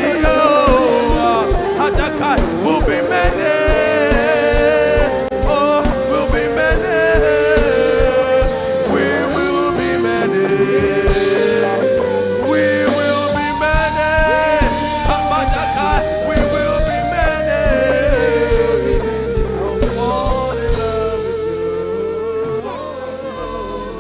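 Live worship music: a wordless sung melody over sustained keyboard and band tones with a steady low drum beat. The beat drops out near the end and the music gets softer.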